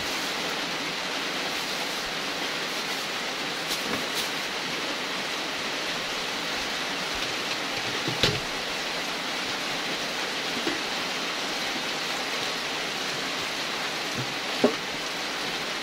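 Steady hiss of falling water, with a few short knocks, the loudest near the end, as vegetable leaves are washed by hand in a metal basin.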